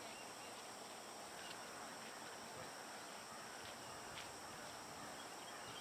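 Faint open-air background: a steady high hiss, with a couple of faint distant clicks.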